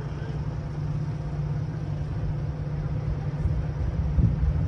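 Diesel locomotive engine running out of sight with a steady low drone, and a short louder low thump just after four seconds.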